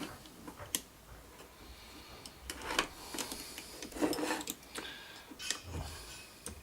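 Scattered light clicks, taps and short rubbing scrapes of small record-player deck parts being handled during dismantling.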